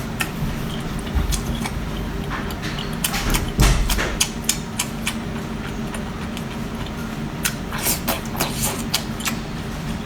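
Scattered sharp clicks and crackles of seafood and shells being handled and eaten, over a steady low hum, with a heavier thump about three and a half seconds in.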